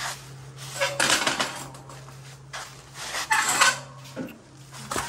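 Metal clattering and rattling in two bouts about two seconds apart, with a thump near the end, over a steady low hum.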